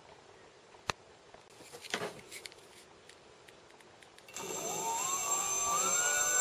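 Brushless electric hub motor spinning up on a Lyen 18-FET controller: a sudden whine starts about four seconds in and climbs in pitch in steps as the throttle is opened, over a steady high-pitched tone. Before it come a single click and some handling rattles.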